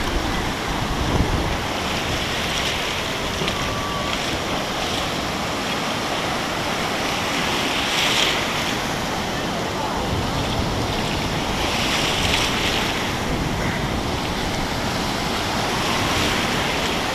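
Ocean surf breaking and washing through the shallows, a steady rushing hiss that swells every few seconds as waves roll in, with wind buffeting the microphone.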